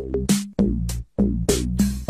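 Electronic background music with a regular beat of short, pitched notes, about three a second.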